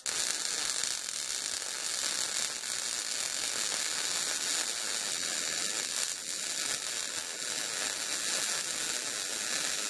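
Arc welder running a continuous bead, a steady unbroken crackling sizzle, as a galvanized eye bolt is welded onto the smoker's steel.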